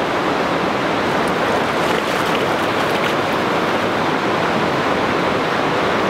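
Steady rush of river water pouring over a spillway.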